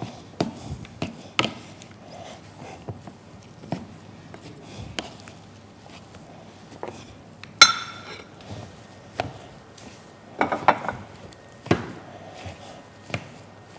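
A metal utensil scraping and knocking against a glass bowl as potatoes are mashed, in scattered irregular taps, with one sharper ringing clink about halfway through and a few quick knocks near the end.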